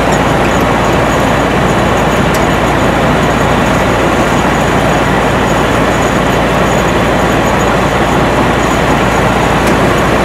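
Rice combine harvester's diesel engine and machinery running steadily: a loud, even mechanical noise that holds without change.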